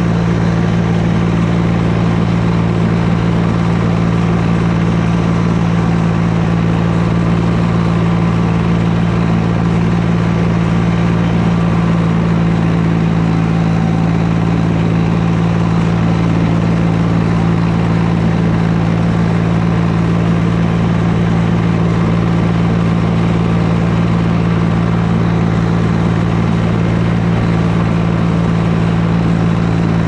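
Farm tractor engine running at a steady working speed while pulling a hay mower through standing grass: a constant, unchanging engine note.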